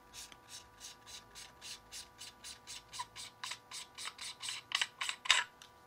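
Plastic projector lens being twisted out of its threaded plastic mount, the threads scraping in a quick series of short rasps, about four a second, with a few louder ones near the end.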